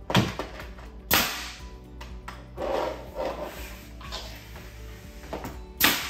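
Pneumatic nail gun firing three times, sharp cracks shortly after the start, at about a second and near the end, driving nails into quarter-round trim along the baseboard.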